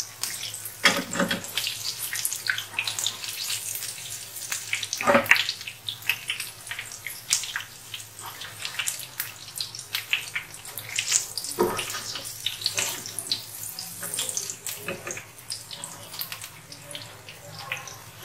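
Besan-coated mutton chops deep-frying in hot oil in a wok, a steady crackling sizzle. A few sharp knocks, about one, five and twelve seconds in, as the finished pieces are lifted out.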